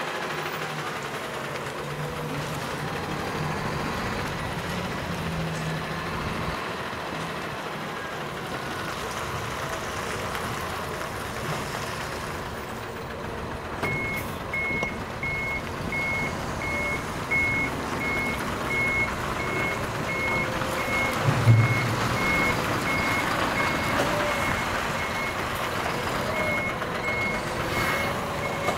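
Large bulk tanker truck's diesel engine running as it manoeuvres, with its reversing alarm beeping at a regular pace from about halfway through. A brief, louder low sound comes about two thirds of the way in.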